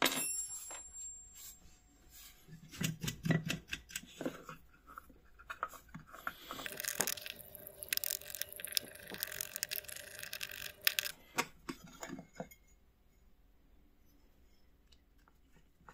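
Hands handling the parts of an old slide projector's wooden slide frame with its metal plate and threaded spindle: scattered clicks and knocks of metal on wood, a few dull thuds, and a longer stretch of scraping and rubbing in the middle as parts are worked and slid. It goes quieter near the end.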